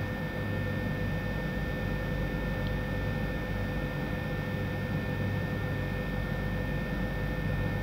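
Steady machinery drone of a power-station control room, a low hum with two thin steady whining tones over it that do not change.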